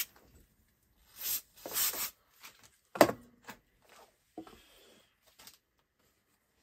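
Short hissing bursts of WD-40 aerosol sprayed at an AC compressor's clutch plate, twice in the first two seconds, then a sharp knock about three seconds in and a few faint clicks.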